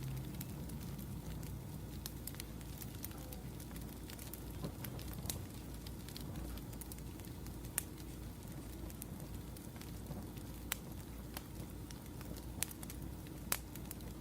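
Wood fire crackling: irregular sharp pops and snaps, a few louder ones in the second half, over a steady low background hum.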